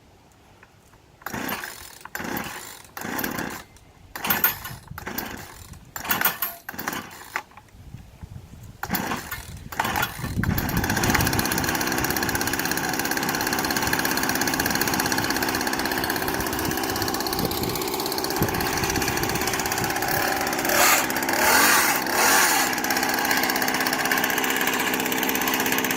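Old Poulan two-stroke chainsaw being pull-started: a string of short pulls on the starter cord, the engine catching about ten seconds in and then running steadily, rising in speed briefly twice near the end.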